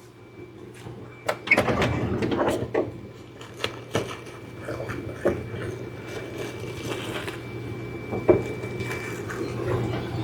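Handling sounds: a string of irregular clicks and knocks, the sharpest about a second and a half in and again near the end, over a low steady hum.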